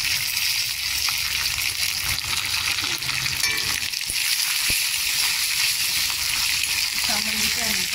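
Hot oil sizzling steadily in a small aluminium kadai as dried red chillies and curry leaves fry for a tempering. A spoon stirs them, and there is a single light knock about halfway through.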